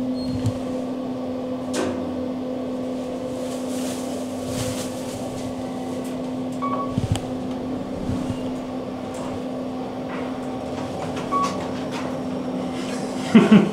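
Steady low hum inside a moving elevator car, with two short beeps about seven and eleven seconds in.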